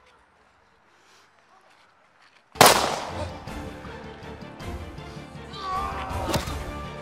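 Near silence for about two and a half seconds, then a loud cinematic hit opens dramatic background music, with sharp punch sound effects landing about two and about four seconds after it.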